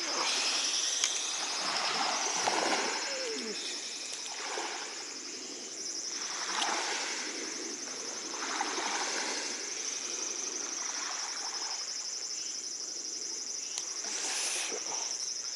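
Water lapping at the lakeshore in soft swells every couple of seconds, over a steady high trill of insects.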